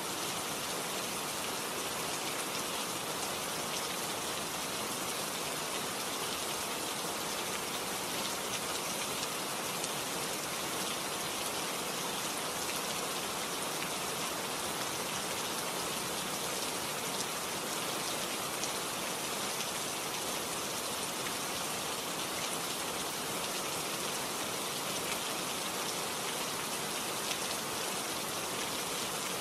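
Steady, even hiss with a fine patter like rain, unchanged throughout.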